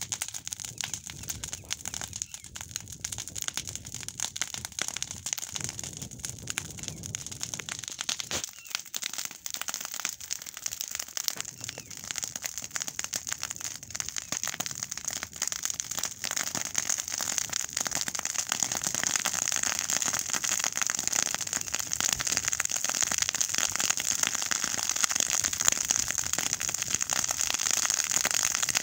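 Clump of green grass and reeds burning, with dense crackling and popping that grows louder about halfway through as the flames take hold.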